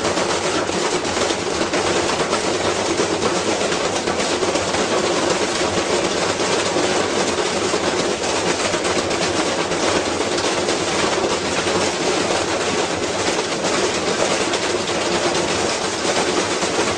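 Washing machine spinning with a heavy object inside its drum, badly off balance, banging and rattling in a loud, continuous rapid clatter.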